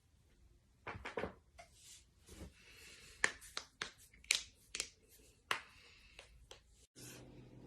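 Joints being cracked: about a dozen sharp pops in quick, irregular succession in the middle, after some soft rustling. Near the end a sudden cut brings in a steady low hum.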